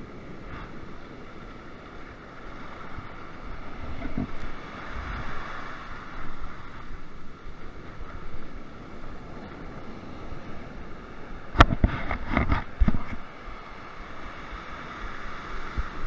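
Surf washing in over the beach, with wind buffeting the microphone. Near the end, a quick cluster of sharp knocks.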